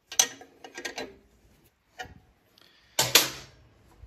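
Metal clinks and clicks as a combination wrench turns a nut on a cast aluminum drill press fence, followed by a louder metal clank about three seconds in.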